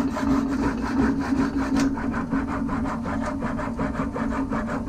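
Horizontal metal-cutting bandsaw running, its blade cutting through a 6061 aluminium bar: a steady motor hum under a fast, even rasping of the teeth in the cut.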